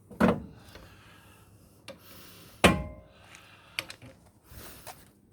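Two loud metal clunks about two and a half seconds apart, the second with a short ring, with lighter clicks and scraping between, as a floor jack lets a pickup's front end down onto a jack stand set at an angle under the trailing arm, which fails to hold it.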